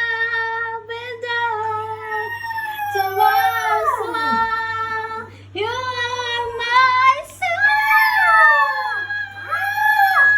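Shih Tzu howling along in long drawn-out notes, each held at a steady high pitch and then sliding down, with a few short rising-and-falling wails near the end.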